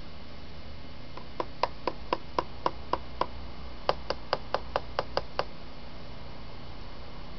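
Cockatiel knocking its beak against a hard surface in two quick runs of about eight raps each, about four raps a second, with a short pause between the runs.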